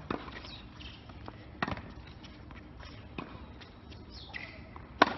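Tennis rally on a hard court: a ball struck by a racket and bouncing, with fainter hits and bounces about every second and a half and a sharp, close racket hit near the end.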